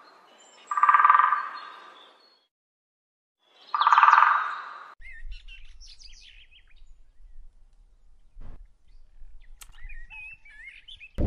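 Sapsucker giving a harsh, nasal mewing call twice, each about a second long. After that, faint twittering of small birds over a low rumble.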